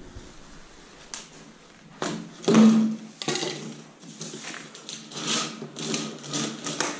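Corrugated plastic PeFlex ventilation duct rustling and scraping on the concrete floor and against a plastic plenum box as it is handled and pushed onto the box's spigot. The scrapes come unevenly, starting about two seconds in, the loudest soon after.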